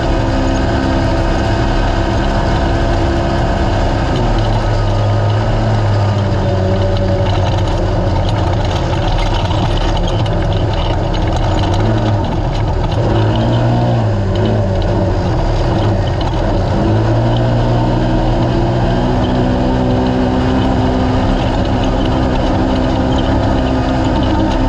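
A naturally aspirated race UTV engine running hard at race speed over rough noise from the vehicle and terrain. Its pitch drops about four seconds in and again around the middle as the driver eases off, then climbs back to a steady high drone.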